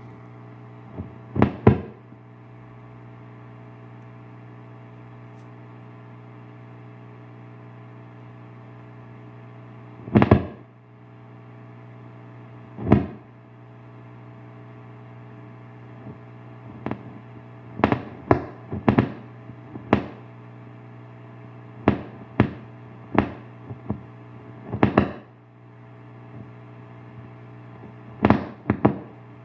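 Bugera 6260 guitar amplifier humming steadily through its speaker while loud, sharp pops crack out at irregular intervals, some in quick pairs, about fifteen in all. This is a fault that began once the amp was first played hard.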